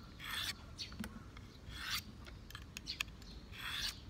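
Pocketknife blade drawn over a diamond sharpening stone: three separate strokes, a little under two seconds apart, sharpening an edge that is damaged near its base.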